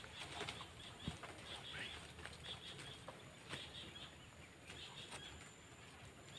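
Faint outdoor ambience with scattered short bird chirps, and a soft knock about a second in.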